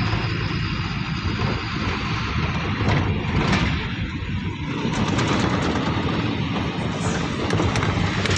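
Vehicle driving along a road, heard from inside the cab: a steady low engine rumble under road and wind noise, with a few light clicks in the second half.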